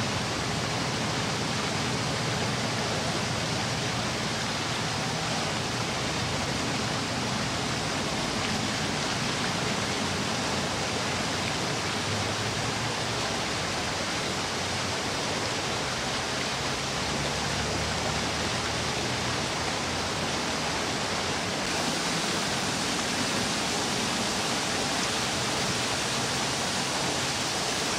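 Steady, even outdoor rushing noise with no distinct events, its level hardly changing and a little brighter from about two-thirds of the way through.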